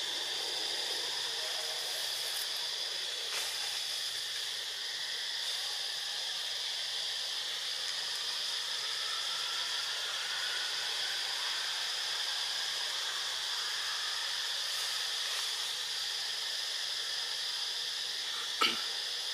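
Steady high-pitched insect chorus, a continuous shrill hiss that holds the same pitch throughout. A single sharp click sounds near the end.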